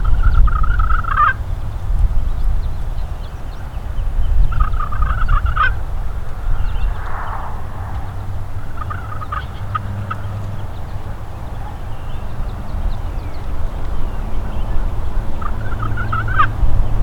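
Wild turkey gobbler gobbling four times, about every four to five seconds, each a rattling call about a second long, over a steady low rumble.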